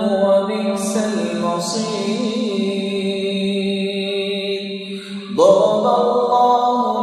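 A man's voice in melodic Quran recitation (tilawat), holding long, drawn-out notes with wavering ornaments. About five seconds in there is a brief pause, and a new phrase starts with a rising slide.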